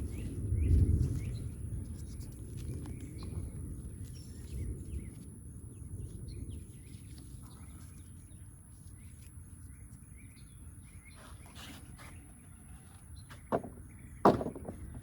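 Thunder rumbling low, swelling about a second in and then slowly dying away. Two sharp knocks come near the end.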